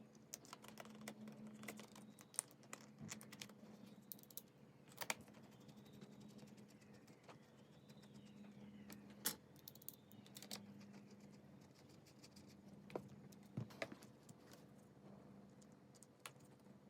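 Faint, irregular clicks and light taps of small parts being handled during the steering-wheel work, with a few sharper clicks, over a steady low hum.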